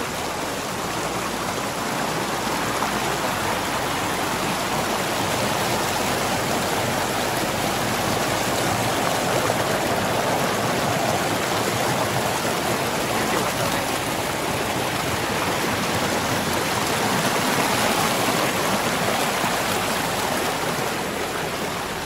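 Small snowmelt stream rushing and splashing down a rocky cascade close by: a dense, steady rush of water.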